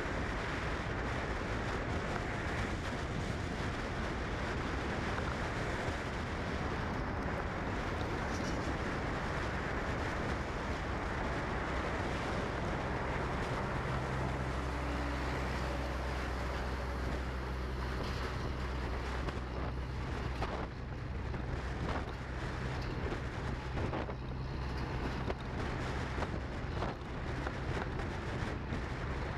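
Steady rumbling noise with wind on the microphone; about halfway through, a steady low hum joins it and holds.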